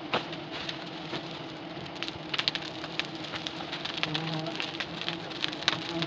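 A swarm of honey bees buzzing at the hive as a steady low hum, with scattered crackles and clicks over it.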